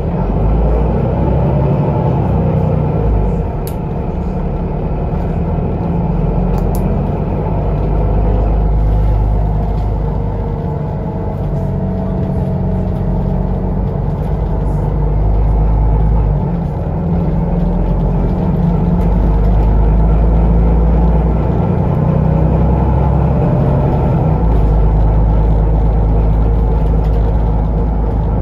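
Inside a Solaris Urbino 18 III articulated city bus under way: heavy, steady low rumble of the engine and drivetrain with road noise. The rumble swells and eases as the bus speeds up and slows.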